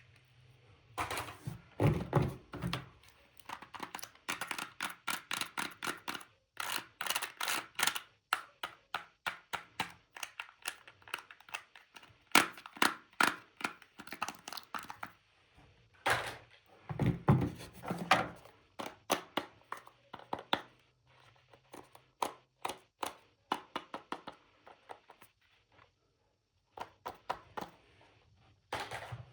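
Plastic toys and packaging being handled and unboxed: a long run of clicks, taps and knocks coming in clusters, with a few short pauses.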